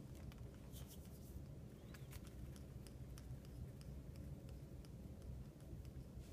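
Faint, scattered light taps and clicks of fingers and soft candy pieces touching a tile floor, over a steady low hum.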